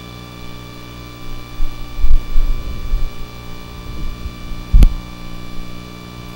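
Steady electrical mains hum from the sound system, with a few dull low bumps about two seconds in and a single sharp knock near five seconds.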